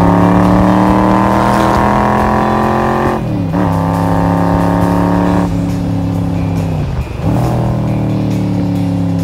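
Cobra roadster's V8 engine running under way, heard from the open cockpit. Its note eases slowly, then briefly drops and picks up again twice, about three seconds in and about seven seconds in.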